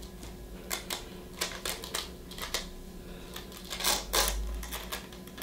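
Irregular plastic clicks and taps from fingers working the small plastic case of a precision screwdriver set, with a louder cluster of clicks about four seconds in.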